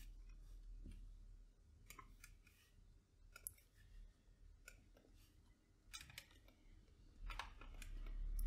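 Faint, irregular computer mouse clicks over a low steady hum, a few at a time, with a small cluster near the end.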